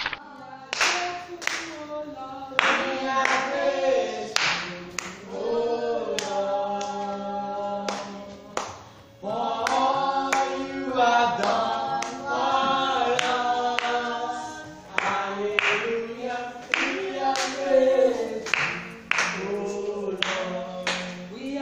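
A small group singing a praise song without instruments, with hand clapping about once a second.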